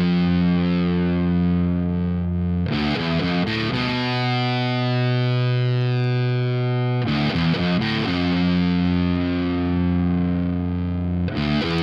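Distorted electric guitar, a 2020 Epiphone 1959 Les Paul Standard played through an Orange Terror Stamp amp pedal into a Marshall 1960 4x12 cabinet impulse response. Held chords ring for three to four seconds each, broken by short fast riffs about every four seconds.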